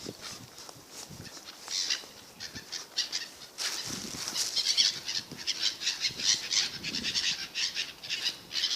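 A flock of birds, gulls among them, flapping their wings and calling in quick, overlapping flutters and chirps. The sound gets louder and busier about three and a half seconds in.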